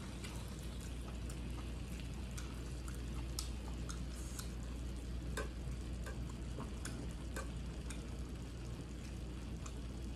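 Close-up eating sounds: chopsticks clicking against a plate and pan, and moist chewing and mouth noises as glass noodles and beef are eaten. Many small irregular clicks over a steady low hum.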